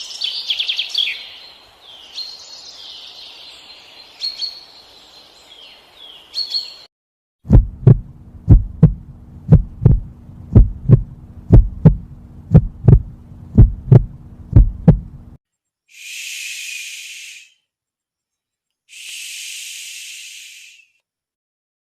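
A run of soft example sounds. Birds chirp for the first few seconds. Then a heartbeat gives paired lub-dub thumps for about eight seconds, and near the end come two short, soft hissing breaths of noise.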